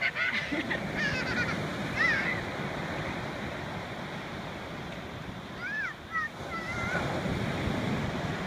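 Small ocean waves breaking and washing up onto a sandy shore. Short high-pitched voice squeals cut through the surf in the first two seconds and again about six seconds in.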